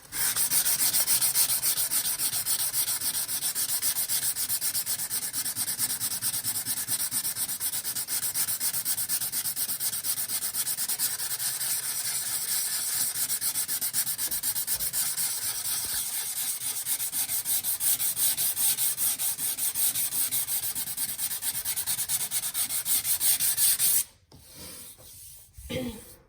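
Fine-grained sandpaper rubbed by hand over a hardened polyamide knot-filler patch in a wooden stair, in steady rapid strokes. The sanding stops abruptly about two seconds before the end.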